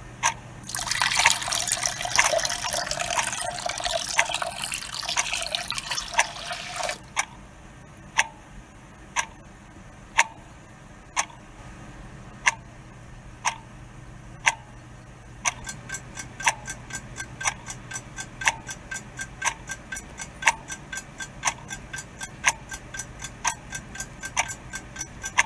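Clock ticking about once a second. Over the first seven seconds there is a rush of pouring or running water. About two-thirds of the way through, the ticking quickens to about two ticks a second.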